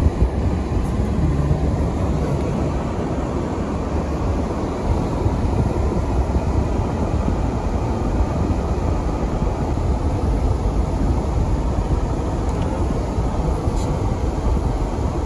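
Steady low rumble of a car driving on snow-covered roads, with engine and tyre noise heard from inside the cabin.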